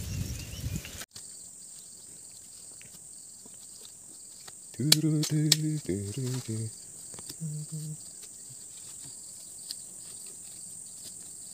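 Steady high-pitched drone of insects. About five seconds in, a low voice sounds briefly, with a few sharp knocks, and it sounds again shortly after. Before that, about a second of louder noise cuts off abruptly.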